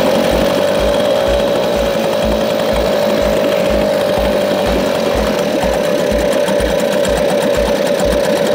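Mariner 3.3 hp two-stroke outboard motor running steadily at idle, cold and just started, with its leg in a bin of water.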